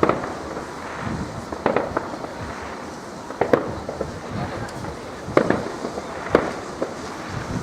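Aerial fireworks exploding: a run of sharp bangs, roughly one every second or two, over a steady background hiss.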